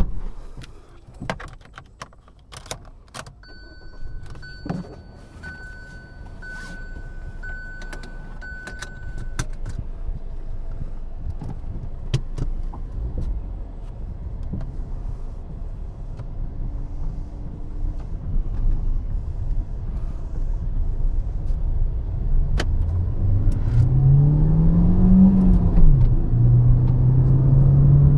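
Inside a Hyundai i20: clicks and a key jangle, then a warning chime beeping repeatedly for about six seconds. The engine sound then builds as the car gets moving, rising in pitch and dropping at a gear change about 25 seconds in, then running steadily.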